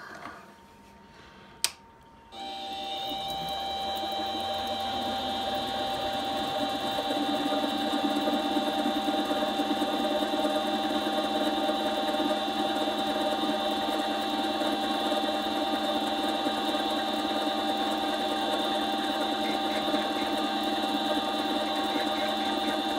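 Chinese mini lathe starting after a sharp click, then its motor and gears running steadily with a high whine as the four-jaw chuck spins, growing louder over the first few seconds before levelling off.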